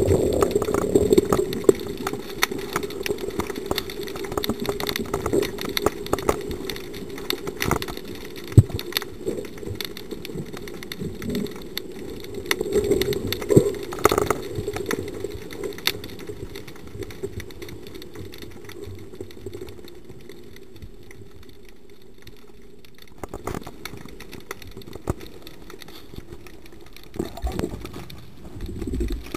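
Underwater sound picked up by a camera in its waterproof housing: a muffled, steady low drone with many scattered clicks and knocks. The drone fades after about eighteen seconds, and a few louder knocks come near the end.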